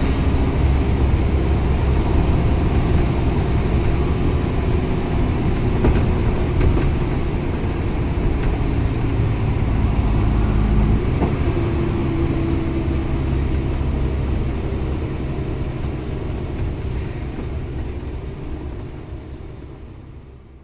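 Volvo B10BLE bus's rear-mounted six-cylinder diesel engine running hard as the bus climbs a hill, heard from inside the passenger saloon. The engine note changes about eleven seconds in, and the sound fades out near the end.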